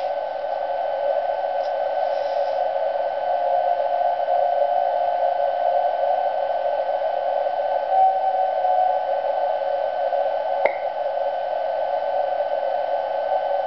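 Receiver audio from a Kenwood TS-2000X transceiver tuned to 49.7396 MHz: steady, narrow-band hiss with faint whistle tones where meteor trails briefly reflect a distant TV transmitter's carrier. The tone is weak around four seconds in and strongest briefly about eight seconds in. A single sharp click comes near eleven seconds.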